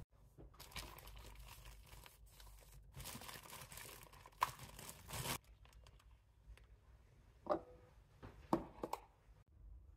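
Plastic bread bag of bagels crinkling and rustling as it is untwisted and opened, for about five seconds. A few short knocks follow near the end.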